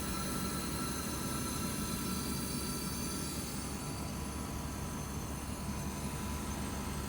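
Changhong CSC-09Y3 air conditioner running: a steady low hum with a thin high whine that fades about three and a half seconds in. Its outdoor fan motor is dead, so the compressor runs without condenser airflow and overheats.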